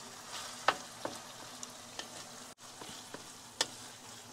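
Ground beef and onions sizzling in a skillet while a wooden spatula stirs and breaks up the meat, with a few sharp taps of the spatula against the pan.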